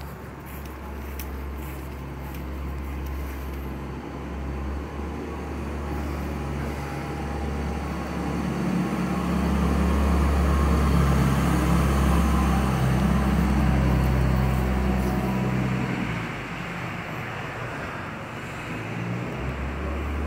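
A motor vehicle's engine running, a low rumble that grows louder about eight seconds in and fades again after about fifteen seconds.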